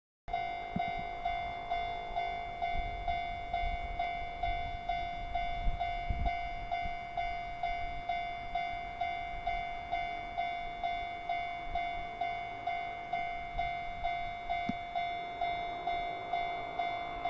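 Japanese level-crossing warning bell ringing, a steady electronic ding repeating about twice a second, warning of an approaching train. A faint low rumble sits underneath.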